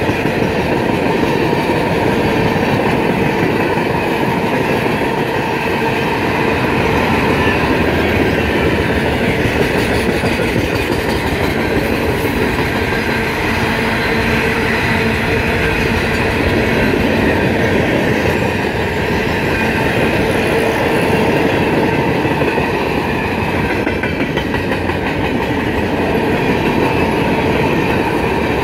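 Freight cars rolling past close by: a steady loud rumble of steel wheels on rail with a continual clatter over the rail joints. The cars are open-top hoppers and gondolas, then tank cars near the end.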